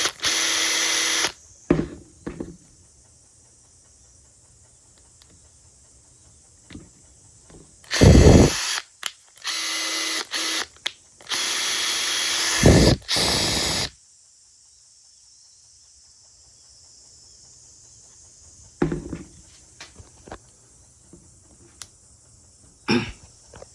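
Makita TP141D cordless 4-mode impact driver run in short trigger pulls, its motor whirring at a steady pitch for a second or so at a time, with two louder, deeper bursts at about eight and thirteen seconds. A quiet stretch follows, broken near the end by a few small clicks.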